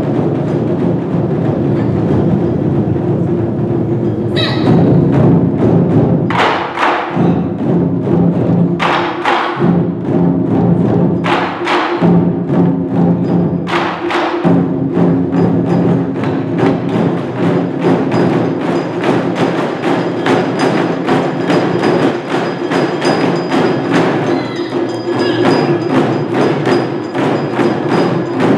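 Large ensemble of taiko drums played together. It opens as a low rumbling roll, breaks into big unison strikes a couple of seconds apart from about four seconds in, and from about halfway settles into a fast, steady, driving beat.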